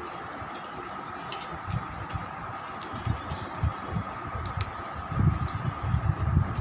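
Two rabbits nibbling popcorn from a steel plate: faint scattered crunching clicks over a steady hum, with dull low thumps that come thicker about five seconds in.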